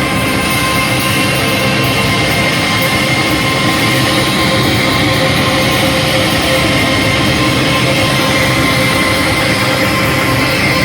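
Live rock band playing a loud, dense, distorted wash of sound, with steady sustained tones held throughout.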